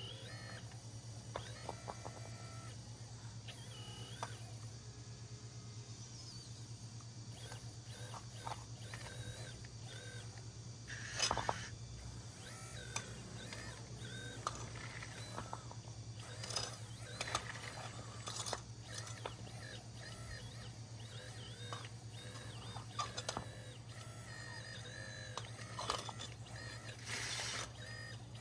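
Scale RC Volvo EC160 hydraulic excavator at work: its hydraulic pump keeps up a steady low hum while short rising and falling whines and clicks come as the arm moves. Scrapes of the bucket levelling a cement floor, loudest about eleven seconds in and again near the end.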